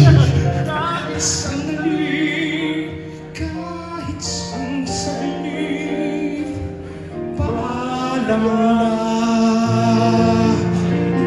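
A man singing into a handheld microphone, amplified over backing music with long held notes.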